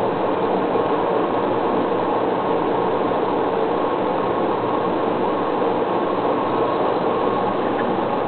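Steady hum and hiss of running aquarium equipment, unchanging throughout, with a faint steady tone in it.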